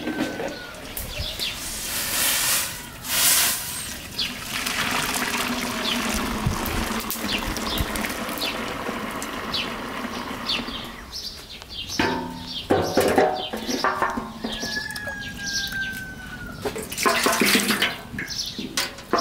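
Running water for several seconds, with birds chirping throughout and a few clattering knocks in the second half.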